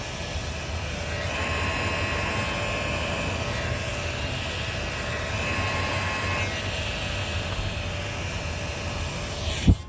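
Heat gun running steadily: its fan blowing with a faint whine. A single sharp click near the end.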